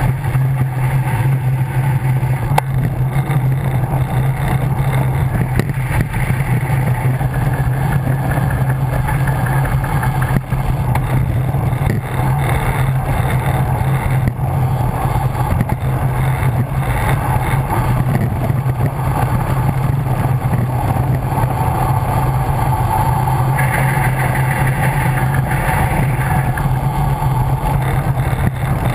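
Steady rushing wind noise on a bike-mounted camera's microphone during a fast road-bike descent, with a low, unbroken rumble from the road.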